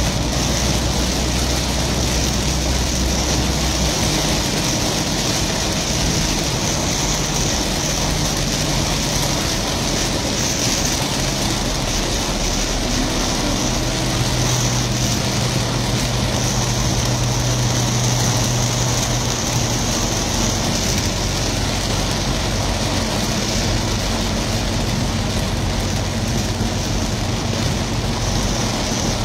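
Very heavy rain drumming on a moving car's roof and windshield, heard from inside the cabin as a loud, steady hiss over the car's engine and tyre noise. The low engine hum shifts in pitch a few times.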